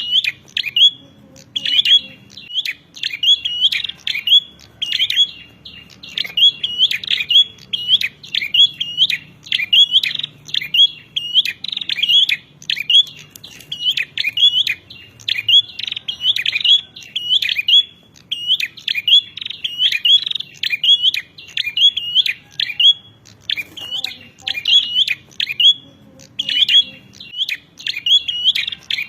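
Prinia (prenjak) giving its rapid fighting call: sharp, high, clipped notes repeated several times a second in long unbroken runs, with brief pauses about two seconds in and again around twenty-four seconds.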